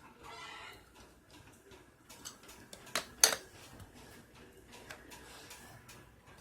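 A few small clicks and taps of hard plastic and metal as a battery pack is handled and multimeter probes are set on its terminals. Two sharp clicks come about three seconds in, the second the loudest.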